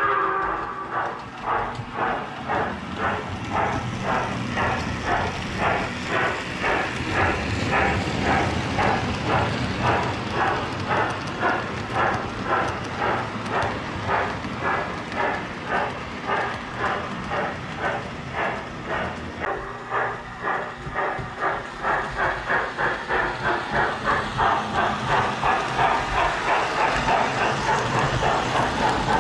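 Lionel O gauge General steam locomotive and coaches running on the track, a steady rolling rumble with a regular pulsing beat of about two a second that quickens and grows louder near the end as the train comes close. A whistle cuts off right at the start.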